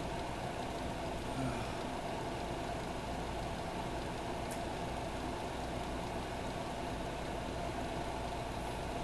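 Steady mechanical hum with a low rumble underneath, unchanging throughout.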